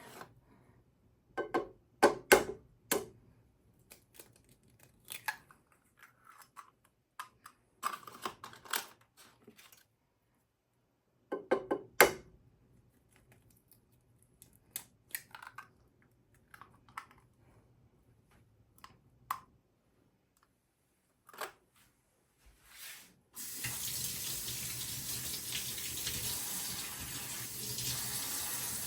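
Scattered clicks and knocks of kitchen handling, then, about 23 seconds in, a kitchen tap is turned on and runs steadily into the sink.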